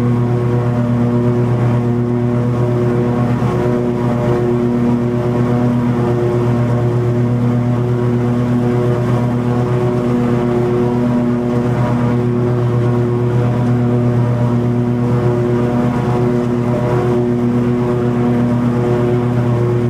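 Toro TimeCutter 50-inch zero-turn mower running at a steady speed while mowing long grass, its engine note unchanging under a rushing hiss.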